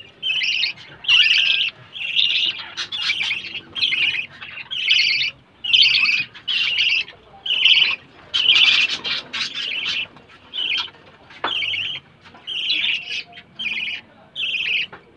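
Caged budgerigars chirping: a steady run of short chirps, about one or two a second.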